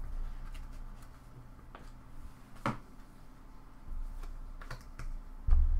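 A few light clicks and taps, the loudest a little under halfway through, from a stack of trading cards being handled in gloved hands, over a steady low hum.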